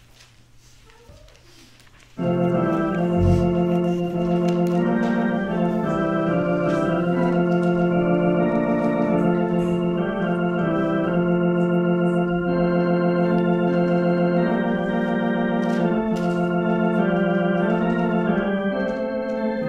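Church organ begins about two seconds in and plays held, steady chords that change from time to time, with a deep bass note added shortly after the start.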